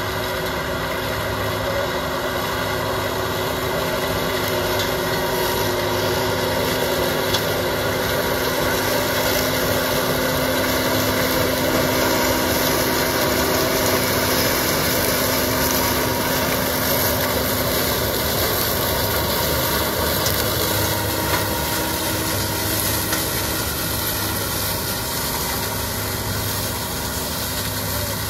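New Holland farm tractor's diesel engine running steadily under load while it pulls a disc harrow through crop stubble.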